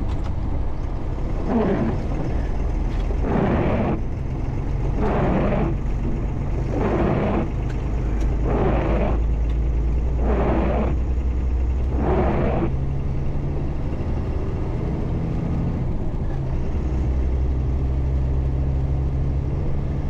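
MAN 4x4 truck's diesel engine running steadily while driving. Over it, seven even windscreen-wiper sweeps come about every second and a half to two seconds, then stop a little past halfway.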